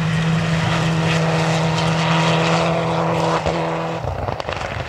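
Mitsubishi Lancer Evolution rally car's turbocharged four-cylinder engine running flat out, its note held steady at high revs. About four seconds in the throttle lifts, the note drops away and crackling follows.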